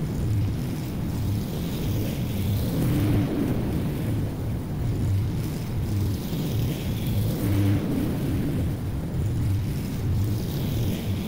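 Honda walk-behind lawn mower's single-cylinder engine running steadily under load as it cuts thick St. Augustine grass, its level swelling and fading gently as the mower moves.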